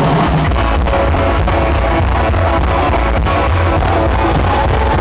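Live rock and roll band playing loud, with electric guitar, upright double bass and drums in a steady beat; the song kicks in at full volume right at the start, cutting in over crowd cheering.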